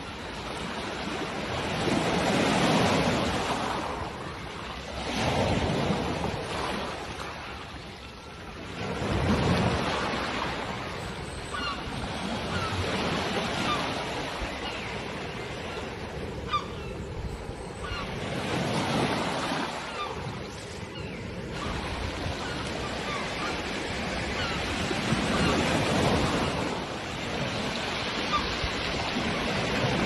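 Sea waves breaking and washing up a pebble beach, the surf surging and ebbing every few seconds, with gulls calling faintly now and then.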